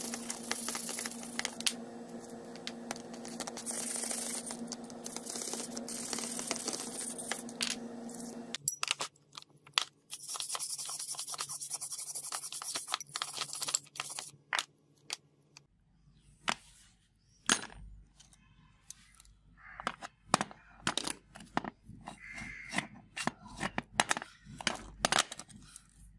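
Stiff brush scrubbing a rusty steel pipe cutter and its threaded feed screw in a tray of cleaning liquid, over a steady hum that changes pitch about a third of the way in. In the second half, a run of sharp metallic clicks and knocks.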